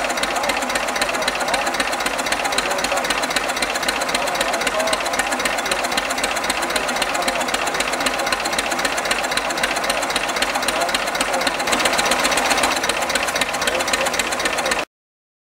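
Old Hanomag tractor's diesel engine idling steadily with a fast, even beat. The sound cuts off suddenly near the end.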